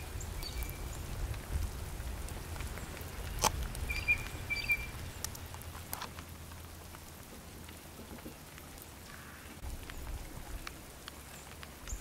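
Meltwater dripping and pattering on a wet driveway, with scattered drop clicks and a low rumble underneath that fades after about eight seconds. A few short, high bird chirps sound near the start and again about four seconds in.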